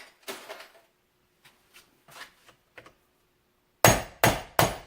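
Hammer blows on the centre of an ATV's CV axle end, driving it out: a few light taps, then three hard metallic strikes in quick succession near the end.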